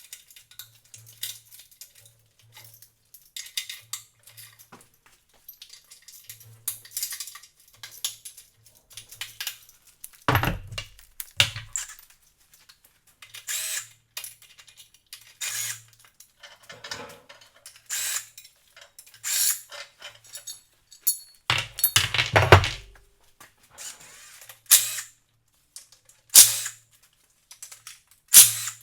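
Metal tools and engine parts clinking and clanking during the teardown of a BMW S52 engine: irregular sharp clicks and knocks, with two heavier thumps about ten seconds in and again a little past twenty seconds.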